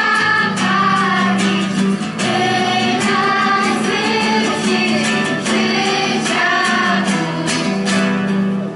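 Children's choir singing a hymn in unison, accompanied by two strummed acoustic guitars.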